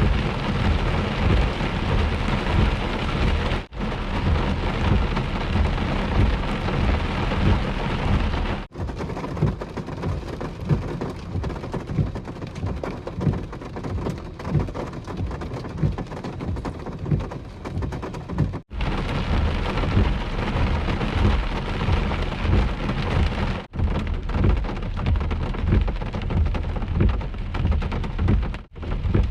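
Heavy thunderstorm rain pelting down with thunder rumbling underneath, the sound broken by brief dropouts every five seconds or so.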